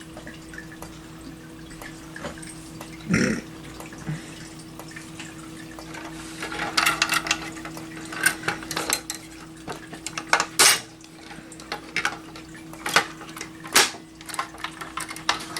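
A steady hum under irregular sharp clicks and light clinks, which come more often from about six seconds in.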